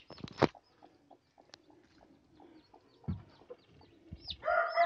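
Faint high peeping of newly hatched chicks, with a couple of sharp knocks near the start. Near the end a broody Siruvadai country hen under the bamboo basket gives a long, loud call as the basket is handled.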